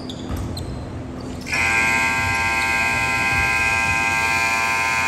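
Gym scoreboard buzzer sounding one long, steady blast of about four seconds, starting a second and a half in: the end-of-period buzzer as the game clock runs out.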